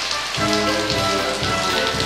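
Steady rain falling on a patio, under background music with held notes and a low pulsing beat.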